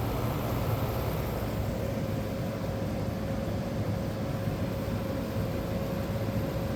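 1985 White Westinghouse window air conditioner running with its cover off: the fan blowing air and the original Matsushita rotary compressor running under it, a steady whooshing noise with a low hum and a faint steady tone.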